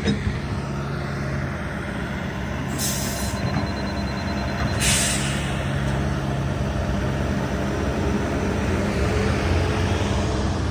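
Bobcat E85 compact excavator's diesel engine running steadily under load while it digs a footing trench, with two short hisses about three and five seconds in.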